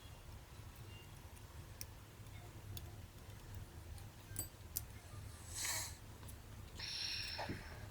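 Faint light clicks and taps of small tools and camera parts being handled during disassembly, with two short scraping or rustling sounds about five and a half and seven seconds in, over a low steady hum.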